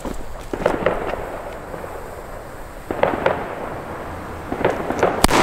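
A German-made MIG Kanonenschlag salute firecracker from Sauer Feuerwerk goes off with a single sharp bang near the end, with echo rolling after it. A few soft knocks come before the bang.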